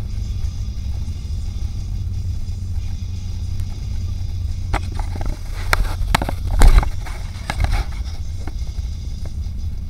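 Manual-transmission car heard from inside the cabin while driving: a steady low engine and road rumble. A run of sharp clicks and knocks comes about five to eight seconds in, the loudest near the middle of that stretch.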